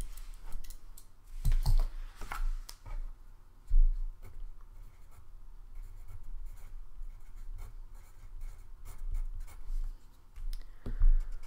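Sheets of paper being handled and shuffled on a desk: scattered rustles and scrapes with a few thumps, the loudest about four seconds in.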